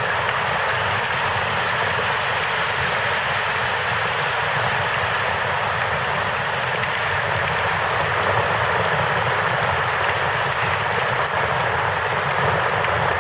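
Steady rushing of river water, with faint crackling of a campfire.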